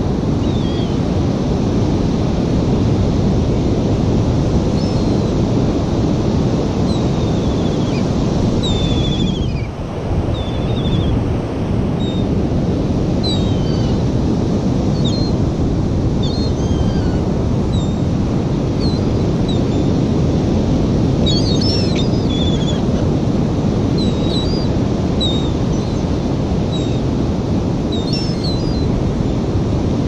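Steady noise of wind on the microphone and ocean surf, with many short, high seagull calls scattered through it.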